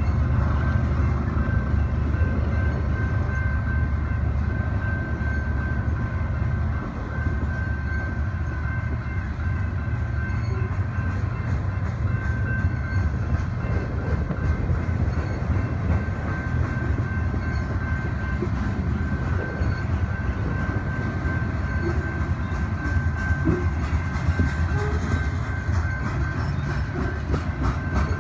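Freight train of covered hopper cars rolling past: a steady low rumble of steel wheels on rail, with rapid clicking as the wheels cross rail joints.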